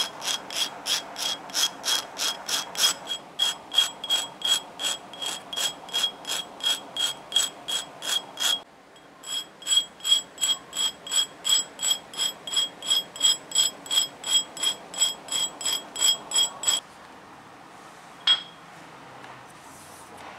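Steel-wire blowgun dart tip rubbed back and forth by hand on a flat abrasive grinding wheel to sharpen it: rhythmic rasping strokes, about three a second, each with a ringing metallic edge. The strokes pause briefly about halfway and stop a few seconds before the end, followed by a single sharp click.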